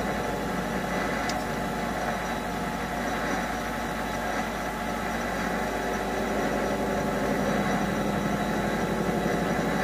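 MX-210V mini lathe running steadily at about 500 rpm, its motor and drive humming evenly while the cutting tool is fed slowly into a rubber workpiece. One faint click about a second in.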